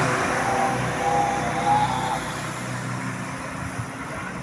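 A bus engine running steadily and fading away after passing, with faint wavering tones in the first two seconds.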